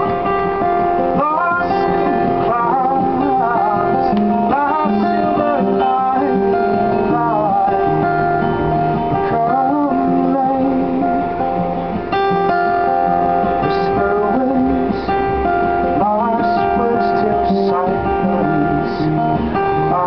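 A man singing to his own strummed acoustic guitar, a live solo performance that keeps on through the whole stretch without a break.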